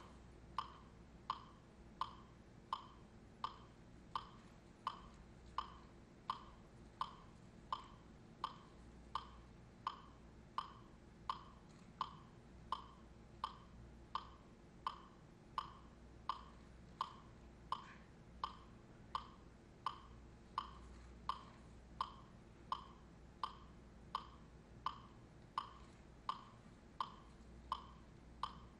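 A metronome-like click beating a steady pulse, one short ringing tick about every 0.7 s, over a faint low hum.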